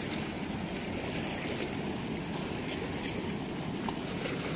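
Steady rush of flowing water at a river weir, even and unbroken, with a few faint clicks over it.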